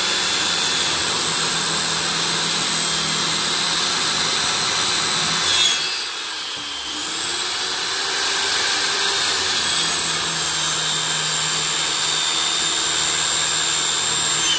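Corded circular saw running under load, ripping lengthwise along a pressure-treated board with a steady high whine. About halfway through, the motor's pitch sags and the sound dips briefly, then picks back up.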